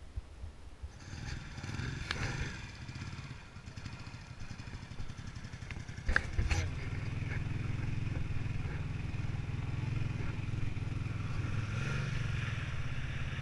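A sharp click about six seconds in. After it, the Honda CX500's V-twin engine runs steadily and more loudly as the bike is ridden; the first half is quieter and uneven.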